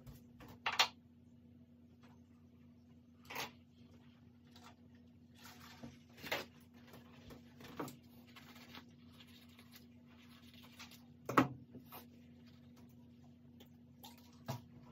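Paper towels being handled and rubbed on the table: soft rustling with about five sharp clicks and knocks, the loudest about eleven seconds in, over a steady low hum.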